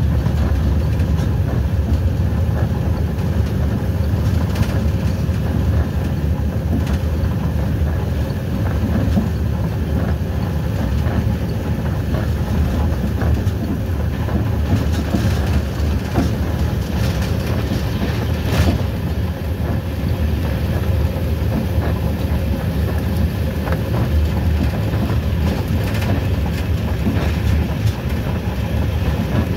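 A moving train heard from the front cab: a steady low rumble of the running train, with scattered clicks from the wheels on the rails.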